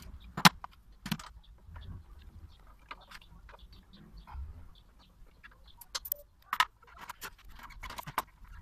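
Small metallic clicks and clinks as gloved hands handle parts at a motorcycle's Tokico front brake caliper: a sharp click about half a second in, scattered lighter clicks, and a quicker run of clinks near the end.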